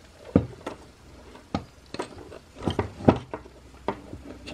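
Handling noise: a microphone body and a black plastic clamp knocking and clicking against each other and the workbench as the mic is set into the clamp. About eight irregular sharp clicks and knocks, the loudest about half a second in and about three seconds in.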